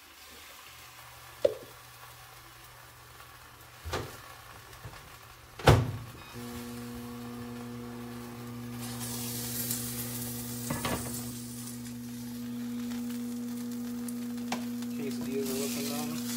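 A microwave oven door shuts with a loud thunk about six seconds in, and the oven then runs with a steady hum. In the second half a quesadilla sizzles on a stovetop grill pan as a high hiss.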